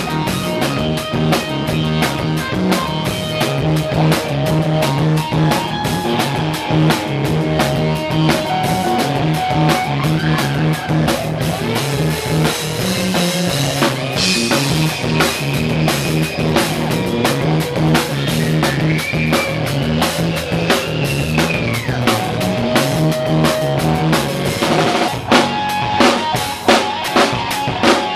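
Live rock band playing at full volume: a drum kit keeping a driving beat with kick and snare, under electric bass and electric guitar. A cymbal crash rings out about halfway through.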